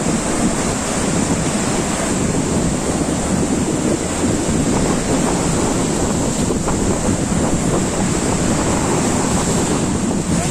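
Sea waves washing on the shore, with wind buffeting the microphone: a steady, loud rush of noise.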